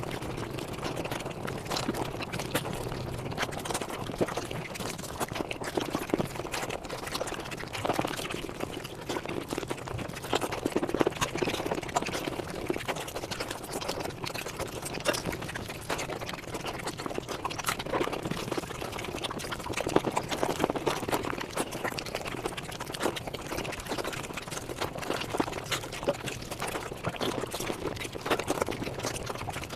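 Mukbang eating sounds sped up five times: chewing, smacking and slurping run together into a dense, unbroken stream of quick clicks and smacks.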